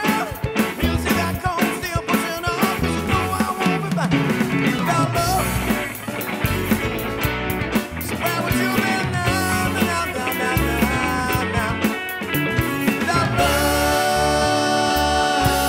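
A rock band song with keyboard playing busily over sharp drum-like hits. Near the end it settles into a long held chord with a sung note.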